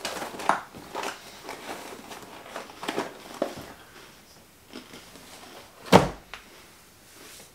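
Dry cinnamon cereal squares crunching and rattling in their cardboard box, with scattered short clicks and rustles, then one sharp thump about six seconds in as the box is set down on the wooden table.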